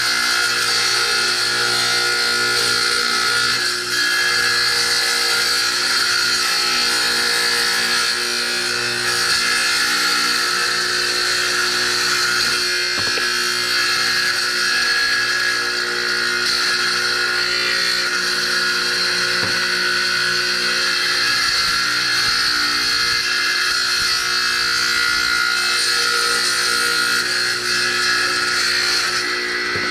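Power saw running steadily while cutting natural stone mosaic tile, a continuous motor hum under a high grinding hiss.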